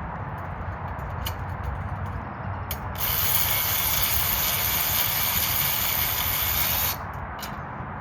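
A steady hiss lasting about four seconds that starts and stops abruptly, with a few sharp clicks of handling before and after it.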